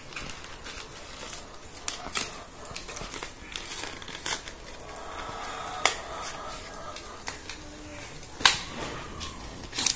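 Paper-and-plastic packaging of a microSD card being crinkled and torn open by hand, with sharp crackles every second or two.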